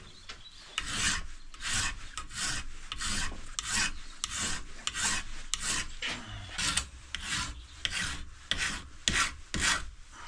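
A hand file rasping back and forth along the edge of a metal strip held in a bench vice, in steady strokes of about one and a half a second, truing up a rough cut edge.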